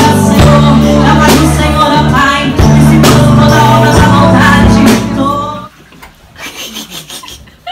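Live church worship band playing, with women singing over electric bass, electric guitar and drums. The music cuts off suddenly about five and a half seconds in, leaving only faint low sounds.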